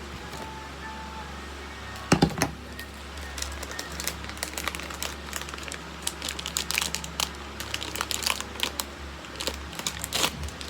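Plastic packaging of a false-eyelash kit crinkling and clicking as it is handled and opened, with a sharper knock about two seconds in. Background music plays.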